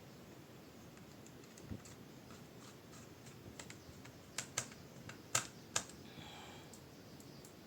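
Small hard parts of a laptop being handled and fitted during reassembly: scattered light ticks, a dull knock about two seconds in, then four sharp clicks between about four and six seconds in.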